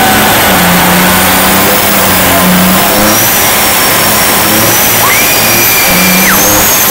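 Volvo semi-truck's diesel engine revving hard and held at high revs, loud, the pitch stepping up and down with the throttle.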